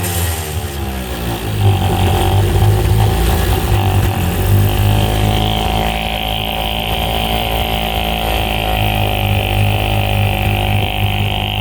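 1956 Scott-Atwater 3.6 HP two-stroke outboard motor running. Its pitch drops during the first second as it slows, then it runs steadily, the speed wavering slightly up and down.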